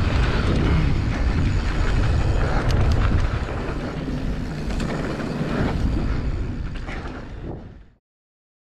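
Wind buffeting the microphone of a helmet-mounted action camera while riding a mountain bike, with its tyres rolling on a dirt trail and a few sharp clicks and rattles from the bike. It eases off after about three seconds, then fades out and stops near the end.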